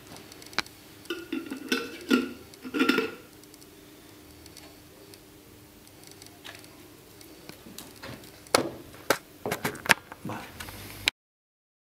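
Metal screw-top lid going onto a glass jar: a run of clinks and scrapes with a faint ringing tone, then several sharp knocks of the jar against a wooden table near the end. The sound cuts off suddenly just before the end.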